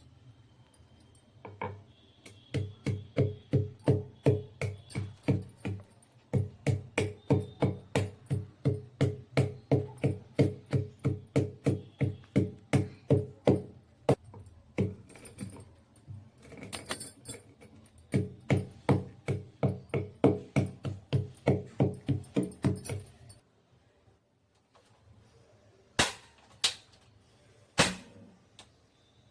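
Black peppercorns being pounded with a pestle: a steady run of thuds, about three a second, broken by short pauses, then a few single strikes near the end.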